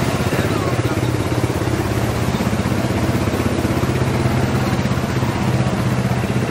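ATV (quad bike) engine running steadily at low speed while wading through a shallow stream.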